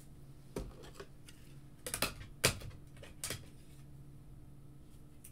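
A handful of light, irregular clicks and taps from trading cards in hard plastic holders being handled and set down on a table, over a steady low hum.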